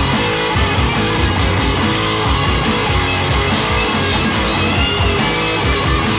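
Heavy metal band playing live: distorted electric guitars, bass and a fast, driving drum kit beat, loud and continuous.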